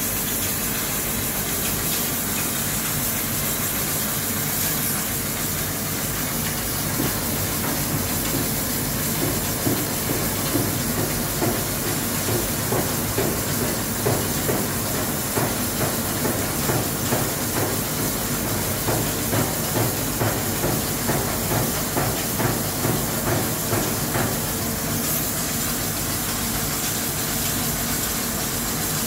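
HüllerHille NBH 170 machining centre rough boring, a roughing cut of about 3 mm per side with a boring head and CNMG insert under flood coolant: a steady coolant hiss over the spindle's hum. From about eight seconds in until near the end, the cut pulses about twice a second.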